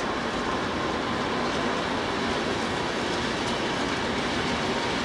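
A train moving along the track, with a steady noise of wheels running on the rails.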